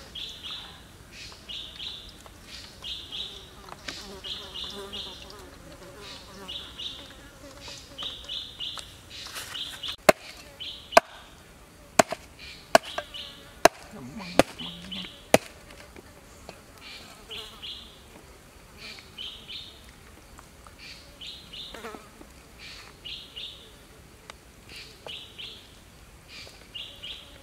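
Insects chirping in short pulsing bursts about once a second, with a run of about seven sharp knocks around the middle.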